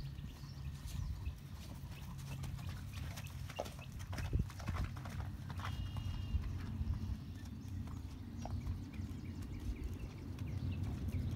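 Hoofbeats of a gaited Kentucky Mountain Saddle Horse moving at a smooth natural gait over grass, a run of soft, uneven knocks over a steady low rumble.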